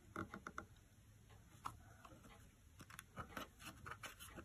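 Near silence: room tone with a few faint ticks and light rustles of hands on a picture book's pages, more of them near the end.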